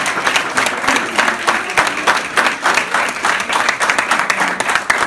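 A small crowd of guests applauding, with individual hand claps standing out in a dense, irregular patter.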